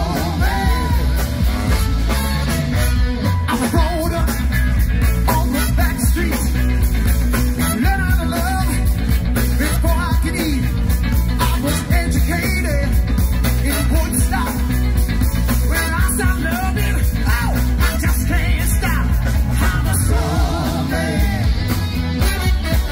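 Live band playing loud through a PA: a lead singer and backing singers over a saxophone horn section, keyboard and drums, with a heavy bass.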